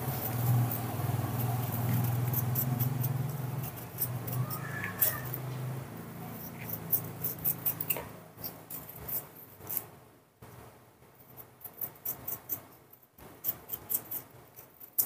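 A small knife paring the skin off a pear, heard as a run of short crisp scrapes and ticks that come irregularly, thicker in the second half. A low steady hum runs under the first half and then fades out.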